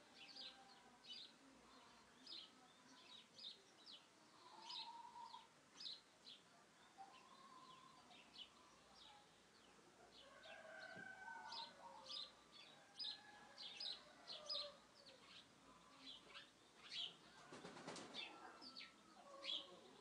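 Faint birdsong: many small birds chirping in short, quick high notes throughout, with some lower calls in between. A short rustling burst comes near the end.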